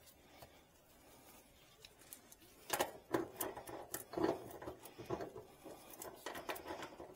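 Brass refrigerant hose fitting being screwed back onto the mini-split's service port by gloved hands: a run of metallic clicks, scrapes and rubbing that starts about two and a half seconds in.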